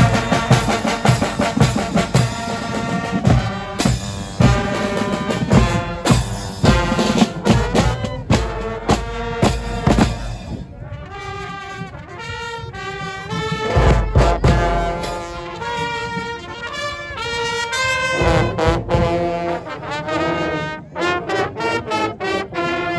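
Guggenmusik brass-and-drum band playing on the march: drums beat under the brass at first, then about ten seconds in the drumming thins and the trombones, trumpets and sousaphones carry a loud, brassy tune, with a heavy bass-drum stroke a few seconds later.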